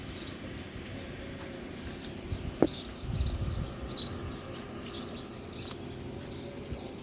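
Small birds chirping, short high chirps repeating every second or so over a steady low background hum. A single sharp click about two and a half seconds in, followed by a brief low rumble.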